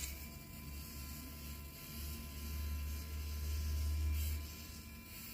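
Small electric winch motor on an RC crawler buzzing as it runs. It runs for under two seconds, pauses briefly, then runs again more loudly for about two and a half seconds before stopping.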